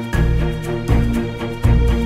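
Background music: a held melody over deep bass notes that strike three times, about three-quarters of a second apart, with light percussion.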